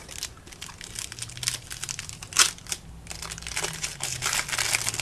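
Foil trading-card pack wrapper crinkling and crackling as it is handled, in a dense run of small crackles that grows busier through the second half.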